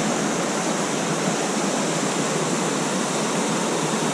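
Steady rush of a mountain creek's whitewater and a small waterfall cascading over boulders into a pool.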